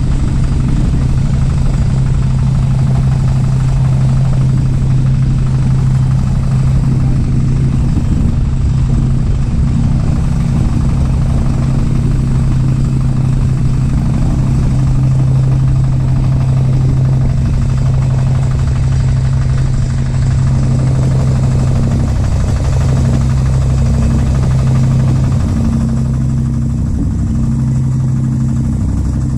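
A small boat's engine running steadily, a constant low hum with a higher overtone, easing off slightly in level over the last few seconds.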